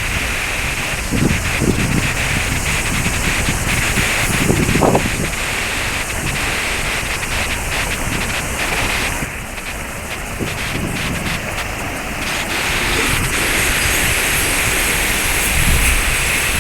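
Steady rush of a waterfall's falling water, with wind buffeting the microphone in low gusts. The water sound drops a little about nine seconds in and swells again a few seconds later.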